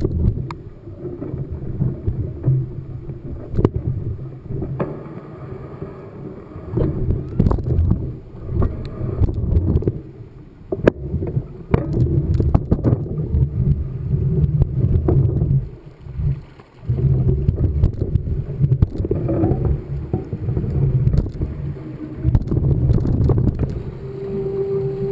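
Wind buffeting the microphone during a mountain-bike ride, a gusty low rumble that rises and falls and drops out briefly past the middle, with scattered sharp knocks and rattles from the bike on rough ground.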